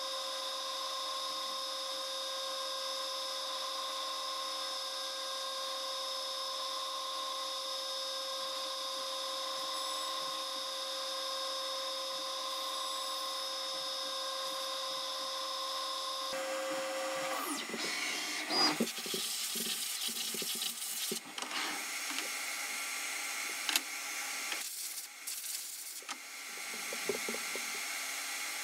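CNC mill running its spindle with a steady whine as a chamfer mill chamfers the edges of the part's bottom side. About sixteen seconds in the whine stops, and irregular clunks and scrapes follow as the finished part is handled.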